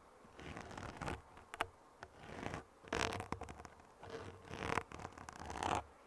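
Close-miked ASMR trigger sounds: scratchy rubbing strokes that swell and fade about once a second, with small sharp clicks among them.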